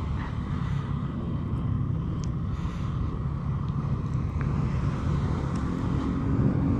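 Motorcycle riding at a steady pace: a low engine drone mixed with wind and road noise, growing a little louder near the end.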